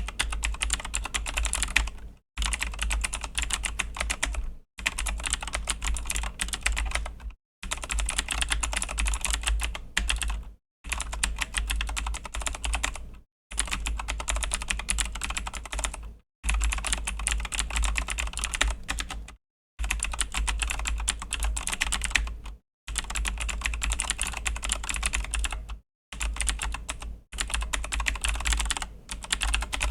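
Typing on a Razer BlackWidow V3 mechanical keyboard with Razer Green clicky switches: rapid key clicks in runs of two to three seconds, broken by short pauses.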